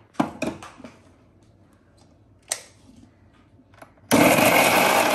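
Clicks and knocks of a small steel mixer jar and its lid being closed and set on the base. About four seconds in, a Preethi Zodiac mixer grinder starts and runs loudly and steadily, grinding ginger, garlic and green chillies into a paste.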